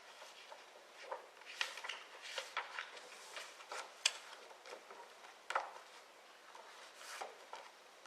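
Scattered light clicks, taps and rustles in a quiet hall, with no piano playing.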